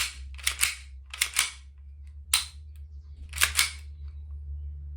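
Full-metal 1911 Hi-Capa airsoft pistol's slide being racked by hand with no gas in it, several times: each stroke a crisp pair of metal clicks as the slide snaps back and slams forward.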